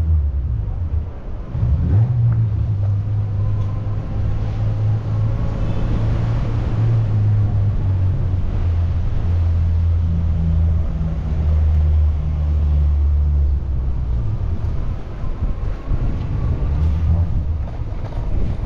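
Low, continuous rumble of motor vehicle engines in street traffic, with a steady engine drone that shifts in pitch a few times.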